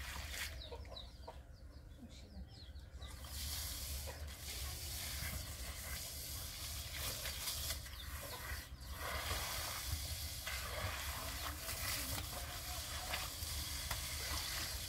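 Chickens clucking over a steady low hum and background noise.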